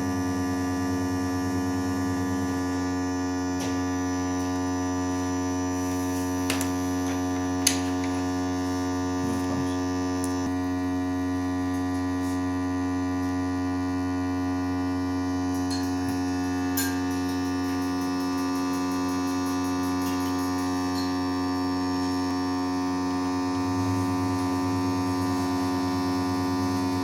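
Steady electrical mains hum made of a stack of many even tones, with a couple of faint light clicks.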